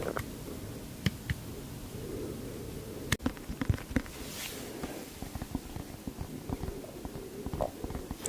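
A man's stomach growling: a continuous low rumble with scattered sharp pops and clicks, most of them between about three and four seconds in.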